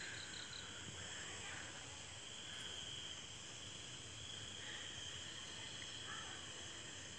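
Faint, steady chorus of night insects, crickets trilling without a break.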